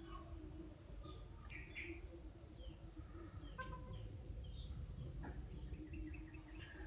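Faint background birdsong: small birds giving scattered short chirps and tweets over low background noise.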